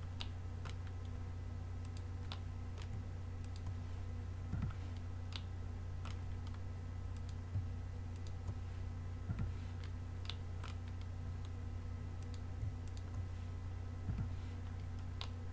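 Computer mouse buttons and keyboard keys clicking now and then, single clicks a second or so apart, over a steady low hum.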